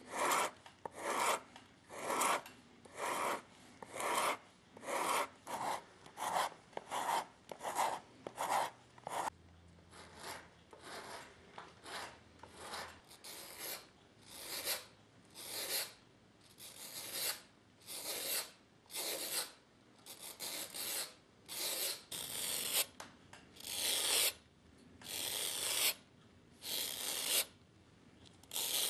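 A shoemaker's rasp filing the edge of a shoe sole in regular rasping strokes, about two a second. About halfway through, the strokes slow to roughly one a second and sound higher and brighter.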